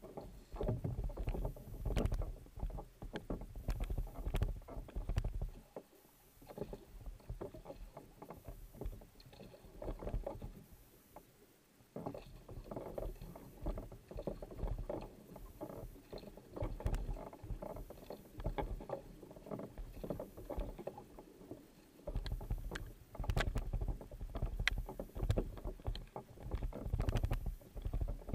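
Kayak paddle blades splashing in and out of the water with each stroke, and water washing along the hull. A low rumble runs under it for the first few seconds and again near the end.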